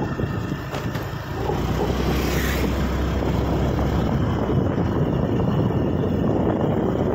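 Ride noise from a moving Honda scooter: wind rushing over the microphone, with steady low road and engine noise underneath.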